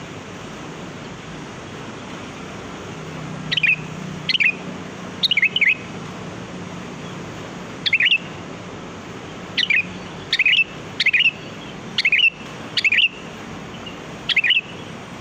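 Sooty-headed bulbul giving short calls, about ten of them at irregular gaps, the first about three and a half seconds in, over a steady hiss.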